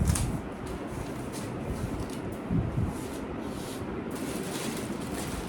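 Cardboard stroller box being opened and its packaging handled: irregular rustling and scraping, with a knock at the start and another short burst about halfway through.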